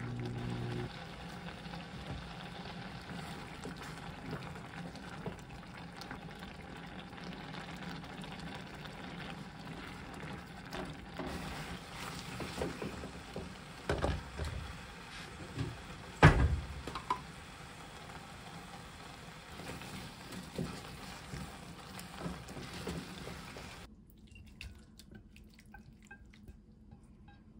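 Thick gangdoenjang stew bubbling in a pot on a gas burner as a silicone spatula stirs and scrapes through it: a wet, sticky noise with scattered clicks and one sharp knock about halfway through. It turns quieter for the last few seconds.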